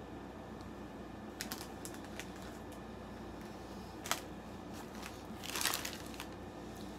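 Plastic snack bag of caramel popcorn rustling and crinkling as a hand reaches into it, the loudest crinkle a little over five seconds in. Scattered light clicks and one sharp tick about four seconds in.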